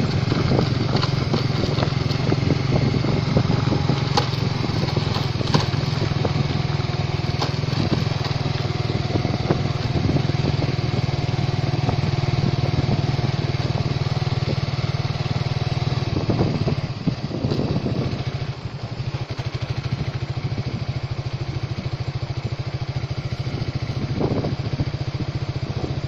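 Motorcycle engine running steadily while being ridden along a rough dirt track, with a few knocks from bumps early on. About two-thirds of the way through, the engine eases off and runs a little quieter.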